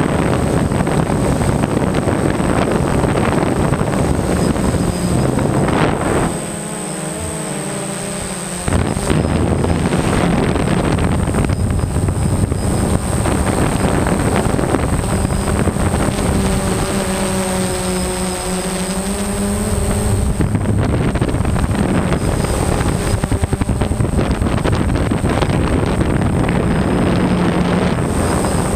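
DJI Phantom quadcopter's motors and propellers buzzing in flight, picked up by a GoPro mounted on the drone, with wind rushing over the microphone and a thin high whine. About six seconds in the sound drops for a couple of seconds with a wavering pitch, and around the middle a steadier hum with clear tones comes through.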